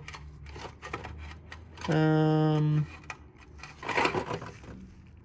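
Loose steel sockets clinking and clattering as they are handled and sorted, with a held hum-like vocal sound about two seconds in and a busier clatter about four seconds in.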